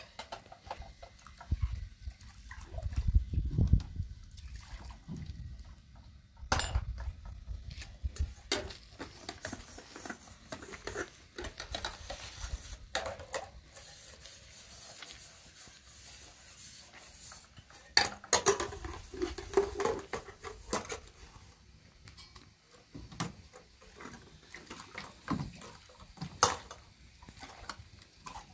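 Metal cups and a pot being washed by hand in a basin of water: water sloshing and splashing, with clinks and a few sharp clatters of metal against metal.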